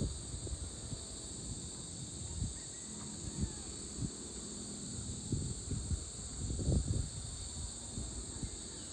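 Steady evening chorus of insects, a continuous high-pitched buzz, with irregular low rumbles of wind buffeting the microphone, strongest a little before the end.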